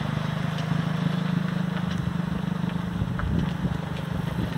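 Engine of an engine-swapped lawn tractor running at a steady idle speed while the tractor drives slowly; no throttle is hooked up yet. A few low knocks come about three seconds in.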